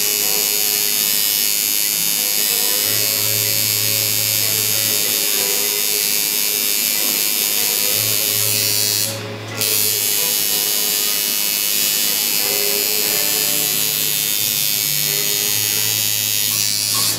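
Electric tattoo machine buzzing steadily as the needle works ink into the skin of a foot, stopping briefly about nine seconds in before starting again.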